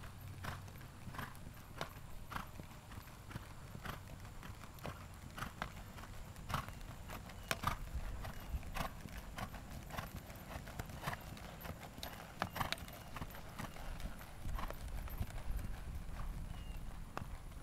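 Hoofbeats of a Gypsy horse trotting on a sand arena: a steady, even beat of short hoof strikes.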